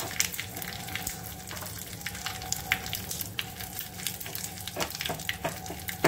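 Curry leaves and dried red chillies sizzling and crackling in hot oil in a small pan as a tempering (phoron) is fried, and stirred with a spatula. The crackling is steady, with frequent small pops.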